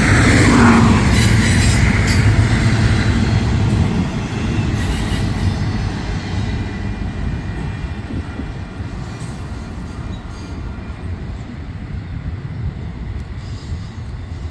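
Freight train cars rolling past on the rails, with a rumble and high wheel squeal that are loudest near the start and then fade steadily as the train moves away.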